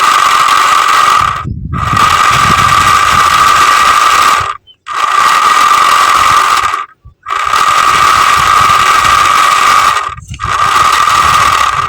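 Small DC motor driving a homemade mini fan, running fast with a steady high whine and a rushing hiss. The sound breaks off abruptly four times for a fraction of a second and starts again each time.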